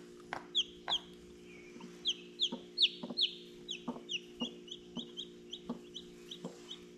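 Newly hatched chick peeping over and over: short, high chirps that fall in pitch, two or three a second, with a few soft knocks mixed in and a steady low hum underneath.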